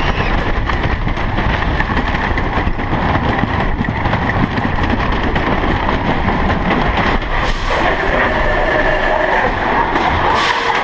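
Roller coaster train running along a wooden-structured track, a steady loud rattle and rumble of wheels on rails mixed with wind on the microphone.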